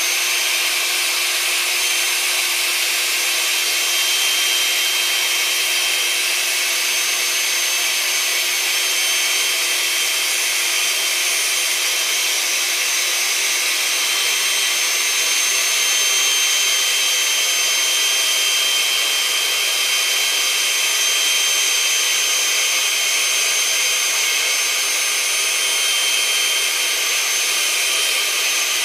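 Small electric pump motor running steadily, a rushing hiss with a high whine, as it sucks the air out of a 6-foot vinyl beach ball.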